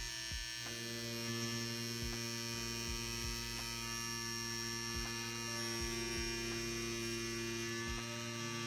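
Hummingbird BRONC V1 wireless rotary tattoo pen running a 14-round shader at 9 volts through practice silicone: a steady motor hum with a little rattle.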